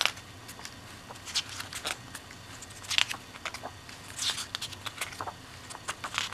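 Pages of a glossy paperbound booklet being turned by hand: short paper swishes and flicks, the sharpest right at the start and about three seconds in, with a longer swish a little after four seconds.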